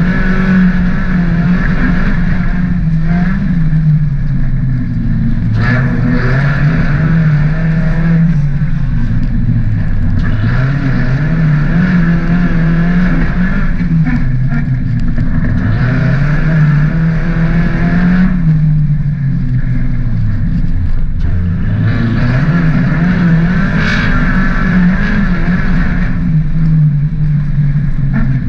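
Mk3 VW Golf's 1.8-litre 20-valve four-cylinder engine heard from inside the stripped cabin, revving up and falling off again over and over as the driver accelerates and lifts.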